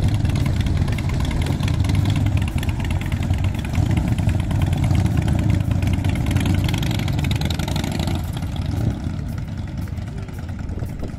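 Several cruiser motorcycle engines running at low revs as the bikes pull away, growing quieter after about eight seconds as they ride off.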